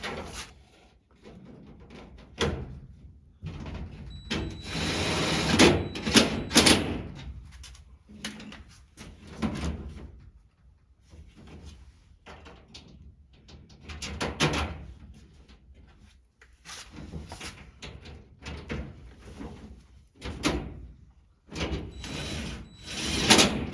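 Irregular knocks, thuds and scraping of body panel pieces and tools being handled and set down. The loudest stretch of scraping and knocks comes about five to seven seconds in, with another burst of knocks near the end.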